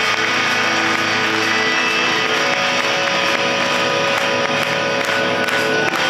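Music with guitar, playing at a steady level.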